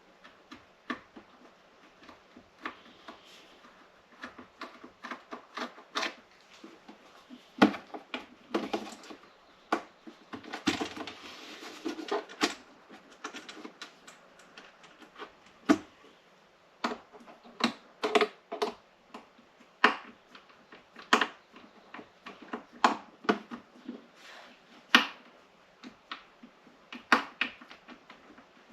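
Irregular sharp clicks and taps of a screwdriver bit and hard plastic parts being handled while working at stripped screws in a coffee maker's base.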